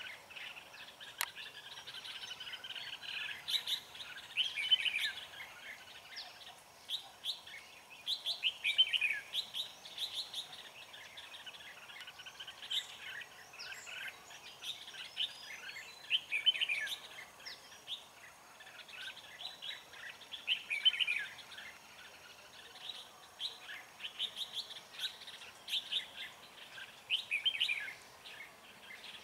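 Red-whiskered bulbuls singing: short, bright chirping phrases, one after another.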